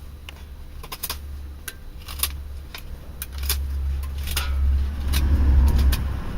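Small fixed-blade knife cutting into hard seasoned ash: a run of short scraping cuts and sharp clicks as shavings come off. A low rumble runs underneath, growing louder from about halfway through.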